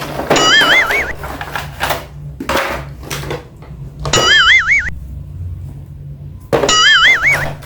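A cartoon-style warbling sound effect plays three times, its pitch wobbling up and down, over a steady electronic music loop.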